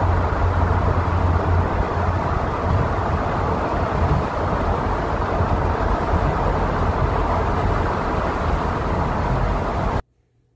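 Steady road and engine noise heard inside a car's cabin while driving through a road tunnel, a constant rushing hiss over a low hum. It cuts off suddenly near the end.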